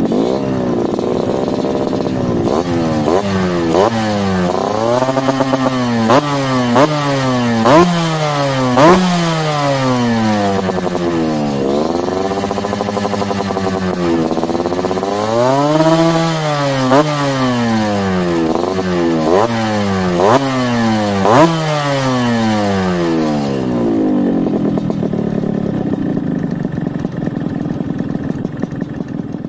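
Yamaha RX-King two-stroke single-cylinder engine, breathing through a Mbah Ranto underbelly aftermarket exhaust, is revved again and again in short throttle blips, its pitch climbing and dropping with each one. About 24 seconds in it settles to a steady idle, which fades near the end.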